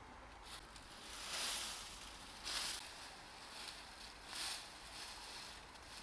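Dry leaf thatch rustling and crackling in several short bursts as a thatch panel is handled and lifted.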